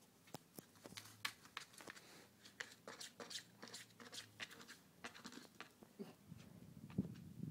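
Kitten's paws and claws on a hardwood floor as it pounces and skitters around a small furry object: a faint, irregular run of light taps and scratches, with a dull thump about seven seconds in.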